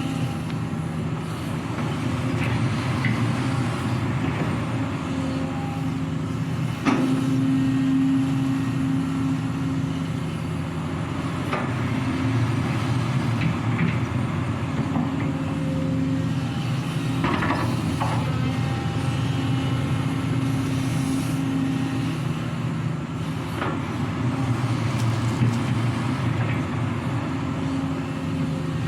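A Sany hydraulic excavator's diesel engine running steadily, easing and picking up as it works under load. A few sharp knocks and clanks come through, one near a quarter of the way in and a pair just past the middle.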